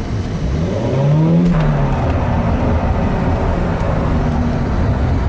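Volvo 945's engine accelerating, its turbo not working: the engine note rises in pitch for about a second, falls at about a second and a half, then runs on steadily with a low rumble.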